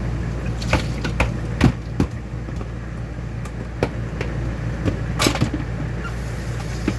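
Dishes knocking and clinking in a kitchen sink during washing up: several sharp knocks at irregular intervals, with a short, louder scraping rush about five seconds in, over a steady low background rush.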